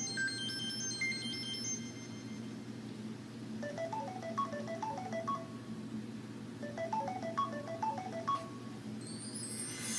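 Samsung Galaxy S4 ringtones playing in turn. A high repeating chime figure ends in the first two seconds, then a short melodic phrase of quick rising and falling notes ending on a higher ping plays twice, and a new tone starts near the end. A steady low hum runs underneath.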